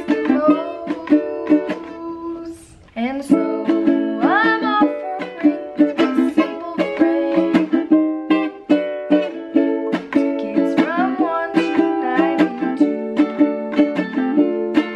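Ukulele strummed in steady chords with a girl's voice singing along; the strumming drops out briefly about three seconds in and then resumes. A beginner's playing, which she herself calls very bad.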